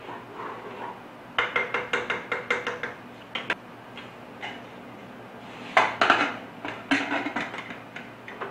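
A spoon knocks rapidly against the inside of an aluminium pressure cooker as rice is stirred, about six ringing clinks a second. About six seconds in comes a louder clatter of metal as the pressure cooker's lid is fitted and locked shut.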